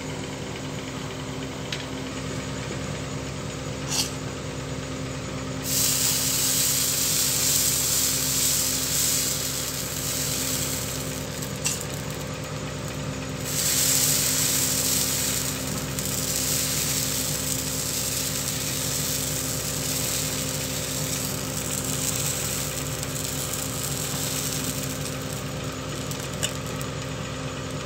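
Dosa batter sizzling and hissing on a hot cast-iron tawa as it is ladled on and spread. The hiss is loudest in two long spells in the first half, over a steady low hum.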